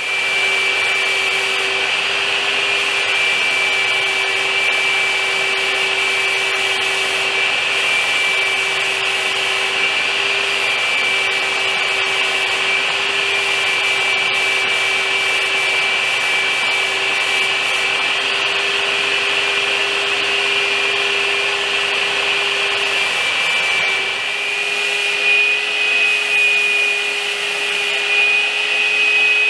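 Hose-fed spray gun spraying wood finish onto a ladder: a steady hiss of air with a constant whine from the air supply. The whine shifts slightly in pitch about 24 seconds in.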